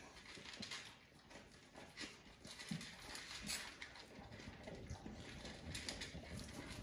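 Two red-nose pit bull puppies eating dry kibble from their bowls: faint, irregular crunching and clicking as they chew.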